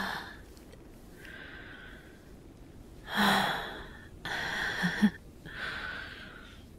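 A woman's breathy exhales and soft sighs close to the microphone, four in a row, the second the loudest.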